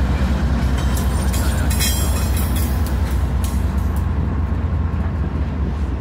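Norfolk Southern diesel freight locomotives passing close by: a steady low engine drone with the rumble of the train, and a few sharp clicks of wheels over the rail about two and three seconds in.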